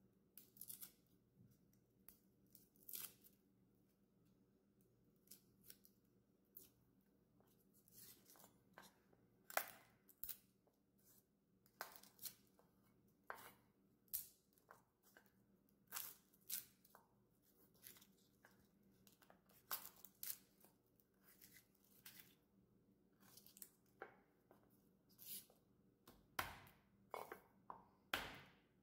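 Garlic cloves being peeled by hand, their papery skins tearing and crackling, and a santoku knife clicking down on a wooden cutting board as cloves are trimmed. The sounds come as faint, irregular sharp clicks and crackles.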